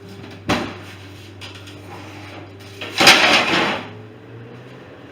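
Kitchen handling noises: a sharp knock about half a second in, then a louder clattering scrape lasting under a second about three seconds in, over a steady low hum.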